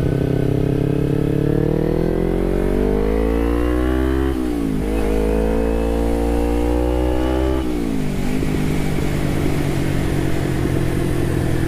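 2012 Kawasaki Ninja 250R's parallel-twin engine pulling under throttle. The revs climb, drop sharply about four seconds in, and climb again. They fall back near eight seconds in, then run steadily at lower revs.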